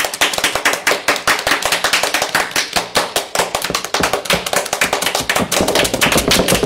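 A rapid, loud run of sharp taps, about eight to ten a second.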